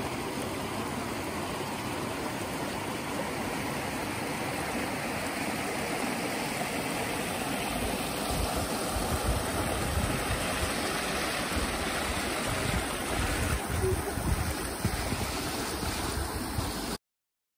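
Shallow mountain stream rushing steadily over rocks. From about halfway, low irregular buffeting rumbles on the microphone join it, and the sound cuts off abruptly near the end.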